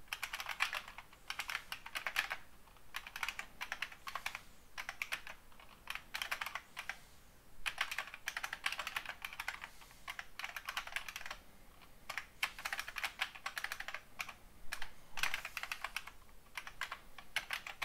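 Typing on a computer keyboard: quick runs of key clicks in about eight bursts, with short pauses between them.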